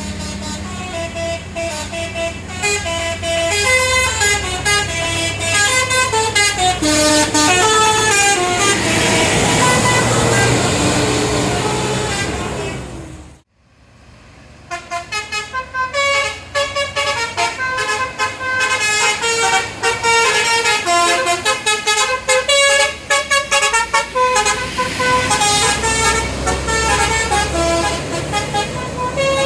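Tour buses' Basuri telolet multi-tone horns playing quick melodic tunes of stepped notes, with a bus engine running and rising underneath. About halfway through the sound cuts off abruptly and a second bus's horn takes up a new tune.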